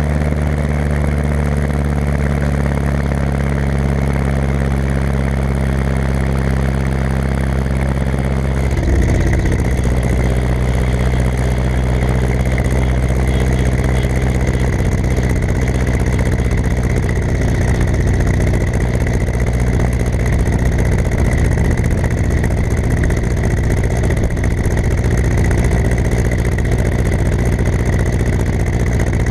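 Ursus C-360 tractor's four-cylinder diesel engine running steadily, with a change in its note about nine seconds in.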